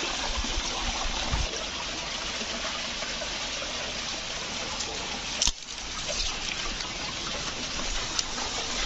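Water trickling over rocks, a steady even hiss, with one sharp click about five and a half seconds in.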